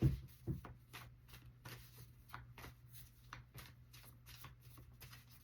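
Tarot cards being handled: a run of soft, irregular card flicks and taps, with a couple of firmer taps in the first half-second.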